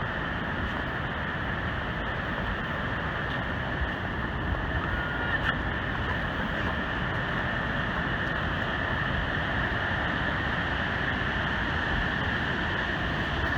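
Steady rushing of a large waterfall, the Great Falls of the Passaic River, an even noise with no breaks.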